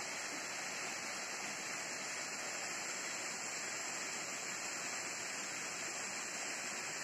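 Shallow river water running over and around rocks: a steady, even rush of flowing water.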